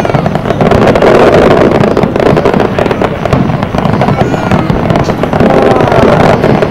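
Aerial fireworks shells bursting and crackling in quick succession, loud and unbroken, with dense rapid cracks layered over a rumbling wash.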